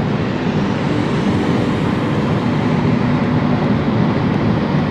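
Steady road and engine noise of a car driving at highway speed, heard from inside the cabin, with a low tyre rumble and a faint steady hum.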